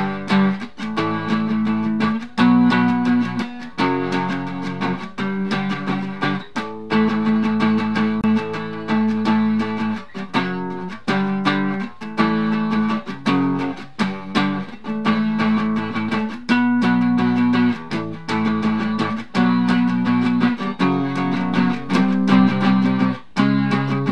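Background music: guitar chords strummed in a steady rhythm.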